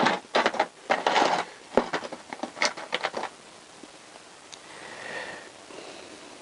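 Small metal engine parts clicking and clattering as they are handled and picked up, here the valve spring retainer being fetched. The clatter stops after about three seconds, followed by a quieter spell with one soft swell of noise.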